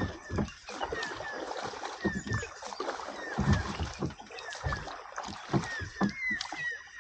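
Many birds calling in short, falling chirps, over water sloshing and knocking against a small boat's hull.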